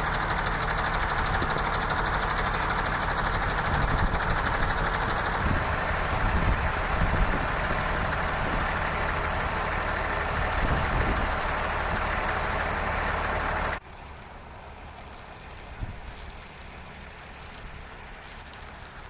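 A vehicle engine running steadily with dense road or wind noise over it. The noise cuts off abruptly a few seconds before the end, leaving a much quieter background with a faint click or two.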